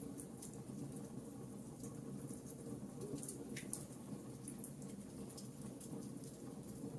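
Wood fire crackling: irregular small pops and snaps over a steady low hiss.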